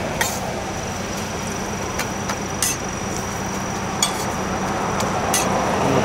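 About five sharp metal clinks, spread out irregularly, of a street vendor's spatula working a banana pancake on a hot griddle, over a steady low hum.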